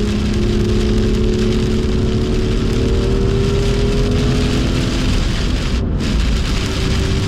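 BMW M2's turbocharged straight-six pulling under load, its pitch slowly rising, then easing off about five seconds in, under a steady hiss of heavy rain and tyre spray.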